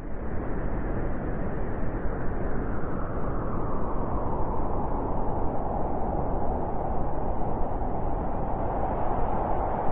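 Blizzard wind blowing steadily, a dense rushing noise with a howl that grows stronger after the first few seconds.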